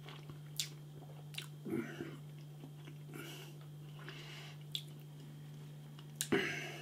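A person chewing a mouthful of beef burger, with faint wet mouth clicks scattered through it and a louder noise near the end, over a steady low hum.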